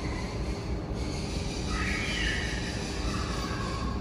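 A few faint, high, thin animal calls, one about halfway through and a lower one near the end, over a steady low rumble of background machinery.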